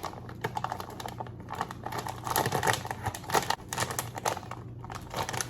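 Irregular rustling and light clicks of things being handled, over a steady low hum.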